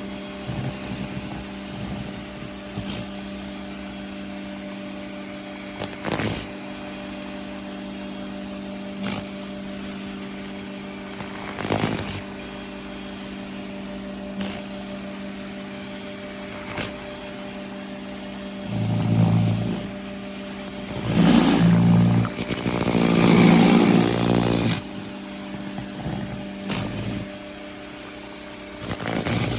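Greenworks 1800 psi electric pressure washer running, a steady hum with several louder surges in the second half.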